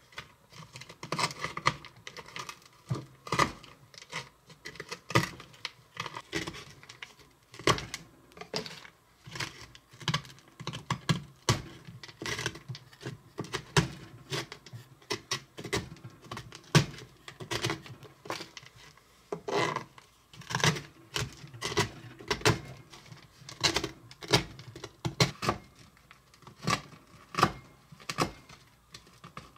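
A small kitchen knife chopping chocolate-covered toffee candy bar on a plastic cutting board: quick, irregular clicks and taps of the blade striking the board, several a second.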